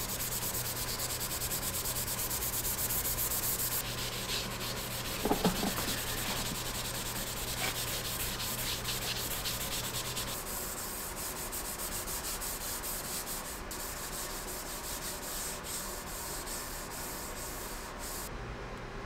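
Hand scrubbing pad rubbing the bare machined ways of a cast-iron milling machine column in rapid back-and-forth strokes, with a brief squeak about five seconds in.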